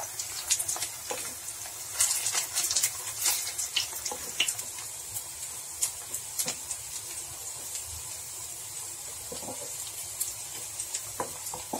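Oil sizzling as flattened-rice and potato patties shallow-fry in a non-stick pan: a steady hiss with frequent sharp crackles and pops, busiest about two to three and a half seconds in.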